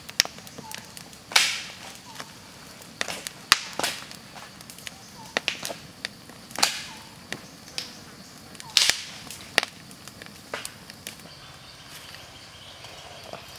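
Campfire of wood and green bamboo tubes crackling and popping, with irregular sharp cracks, a few loud ones trailed by a brief hiss. The popping thins out in the last couple of seconds.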